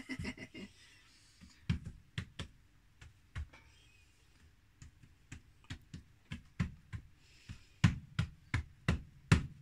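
Rolling pin knocking and thudding on a kitchen worktop while dough is rolled out: irregular knocks, louder and closer together in the last couple of seconds.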